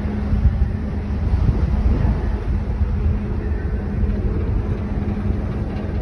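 Train ferry's engines and machinery running as the ship gets under way: a steady low rumble with a constant hum.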